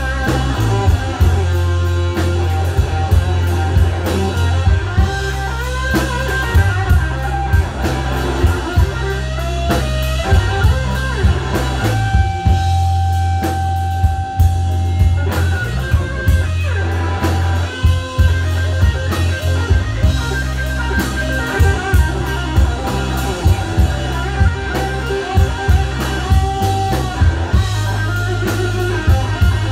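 Live blues-rock band playing an instrumental passage: electric guitar lines over drum kit, bass guitar and keyboard. About halfway through, a single long held note stands out.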